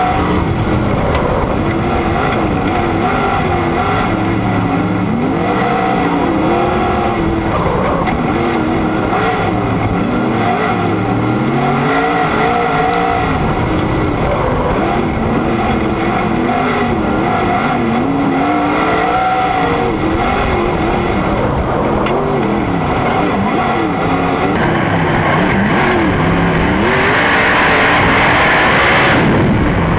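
Sprint car engine at racing speed, heard from on board, its revs repeatedly rising and falling as the throttle comes on and off, over a steady rush of wind and dirt. About 25 seconds in the sound changes, and a louder hiss builds near the end.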